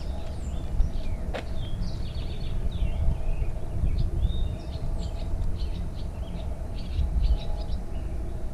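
Birds chirping and calling in quick, repeated short notes over a steady low rumble, with a couple of sharp clicks in the first second and a half.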